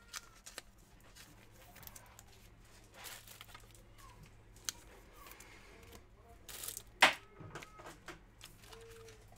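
Trading cards being handled: faint paper and plastic rustling with scattered small clicks, and one sharper snap of card or wrapper shortly before the end.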